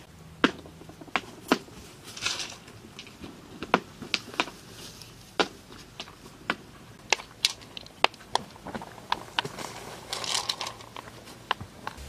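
Small pebbles clicking and knocking against each other, at irregular intervals, as they are handled and set one by one into a wet mortar pond floor, with a brief gritty scrape twice.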